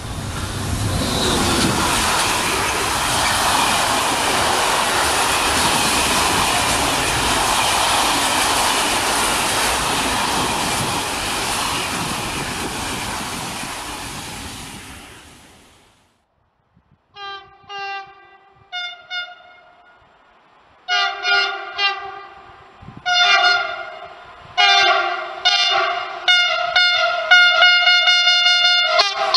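Electric freight train passing close at speed, a steady rush of wheels on rails that fades away. After a short quiet, an approaching locomotive sounds its horn in a long run of short blasts.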